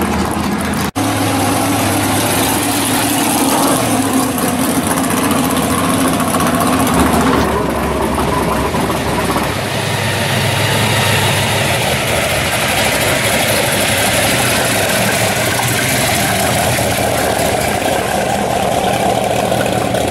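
Supercharged V8 of a blown drag-built Corvette Sting Ray idling loudly as the car rolls slowly. The sound drops out for an instant about a second in.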